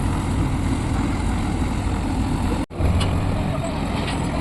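Diesel engine of a heavy unloading machine running steadily. The sound drops out for an instant about two and a half seconds in.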